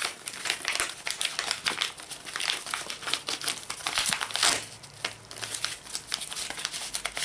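Padded paper mailer envelopes crinkling and rustling as they are handled and one is pulled out of another: a dense run of crackles, loudest about four seconds in.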